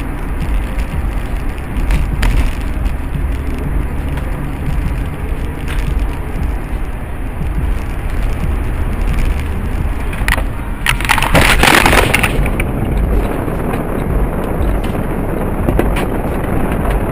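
Steady road noise recorded from inside a moving car, with a car crash near the middle: a loud noisy burst of impact about ten and a half seconds in, lasting under two seconds.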